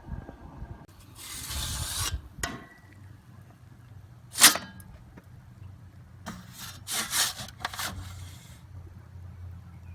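Wind buffeting the microphone, with several short scraping or rasping sounds, the loudest about four and a half seconds in and a quick cluster of them around seven seconds. A steady low hum sets in about three seconds in.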